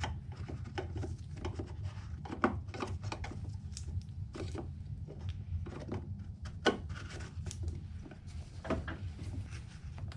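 Small plastic clicks, knocks and rubbing as a bulb socket is twisted and worked into the back of a new plastic headlight housing, a tight fit. A steady low hum runs underneath.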